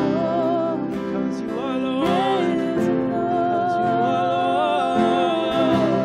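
A man and a woman singing a worship song together, accompanied by strummed acoustic guitar.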